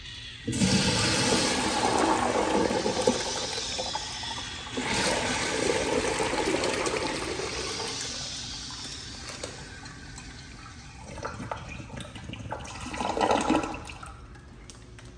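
An American Standard Trimbrook urinal flushing through its flush valve. Water rushes in about half a second in, surges again about five seconds in, then tapers off, with a shorter burst of rushing water near the end.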